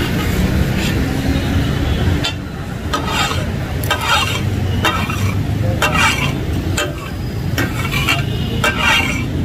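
Metal spatulas striking a hot iron tawa griddle as kidneys and kapooray are chopped for takatak, over a frying sizzle. The clatter of strikes begins about two seconds in and comes irregularly, one or two a second.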